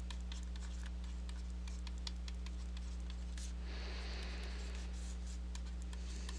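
Steady low electrical hum, with faint scattered ticks and a brief soft scratchy noise about four seconds in.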